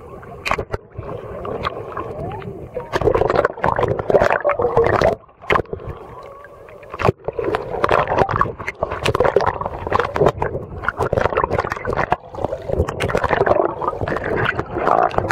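Water gurgling, bubbling and sloshing over a waterproof camera as it dips under the sea surface and comes up again, muffled while submerged. There is a quieter spell about five seconds in.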